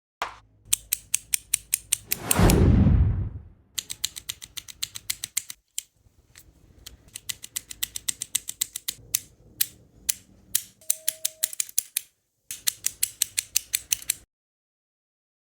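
3D-printed plastic flip-flop fidget toy being worked by hand: runs of rapid, sharp plastic clicks in several bursts, with a louder sweep falling in pitch about two seconds in.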